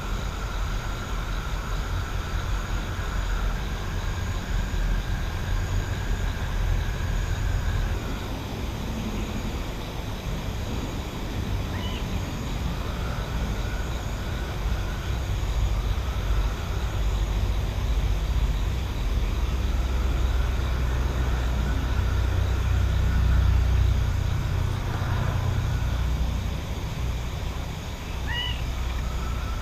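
Night-time countryside ambience: a steady low rumble with a thin high insect trill over it, a fainter mid-pitched trill that comes and goes, and two short chirps, one about twelve seconds in and one near the end.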